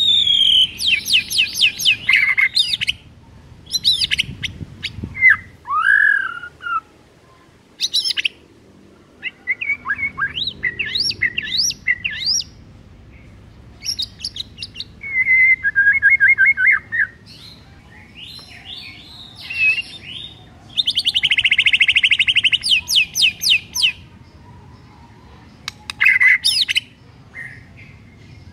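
White-rumped shama singing its varied song in bursts of a second or two, with short pauses between: fast trills, rising whistled sweeps and runs of repeated notes. The longest phrase is a dense, rapid trill about three quarters of the way through.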